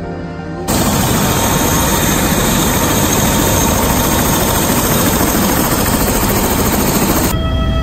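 Helicopter turbine engine running close by: a loud, steady rushing noise with a faint high whine. It cuts in abruptly under a second in and stops abruptly near the end, where soundtrack music takes over.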